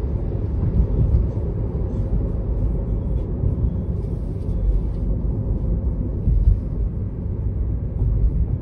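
Road and tyre noise from a Tesla Model 3 on the move: a steady low rumble with small swells and no engine note.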